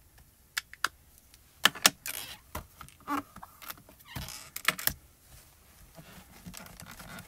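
Hard plastic stamping tools being handled on a stamp positioner: a series of sharp clicks and knocks of clear acrylic pieces being set down and moved, loudest about two seconds in. Softer rubbing near the end as a cloth towel wipes the stamp.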